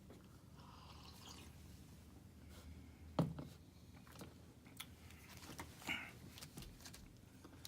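A person eating: quiet chewing with soft wet mouth sounds and scattered small clicks, the sharpest about three seconds in.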